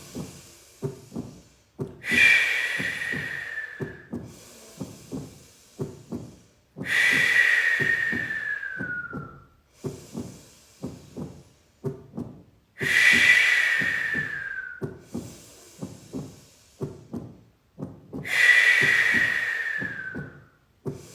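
Four long, forceful breaths, each loud at first and fading over about two seconds with a falling pitch, about every five to six seconds, over a steady beat of soft knocks at about two to three a second, like a heartbeat.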